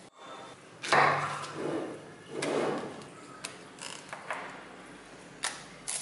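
Small magnetic balls clicking and clattering against each other as pieces are snapped onto a magnet-ball maze wall: a sharp snap about a second in, a couple of seconds of clattering, then a few single clicks.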